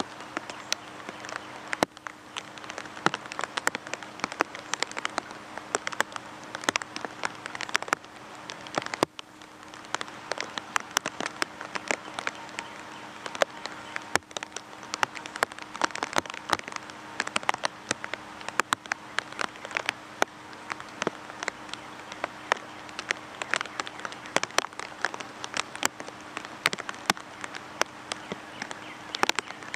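Steady rain falling on foliage, with many sharp, close raindrop ticks, a few a second, over the even hiss of the rain.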